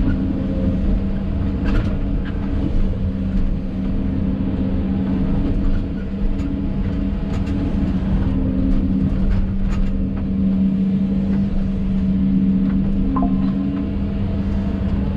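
Hidromek 220 excavator's diesel engine running steadily, heard from inside the cab, with a few short sharp clicks over it.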